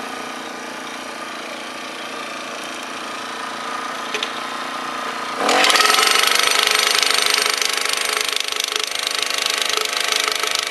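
A petrol post driver's Honda GX35 four-stroke engine idles, then revs up about halfway through. The driver's hammer then pounds rapidly as it drives a steel star picket into the ground.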